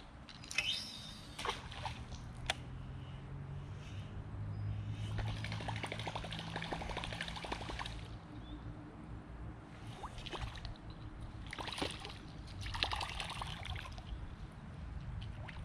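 Water trickling and sloshing close around a float tube as the angler moves, swelling in a few noisy stretches, with a few sharp clicks near the start and a low steady hum underneath.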